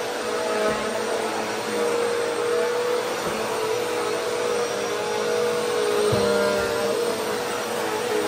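Bagless upright vacuum cleaner running steadily while pushed back and forth over low-pile carpet, its motor hum holding a steady pitch that wavers slightly with each stroke.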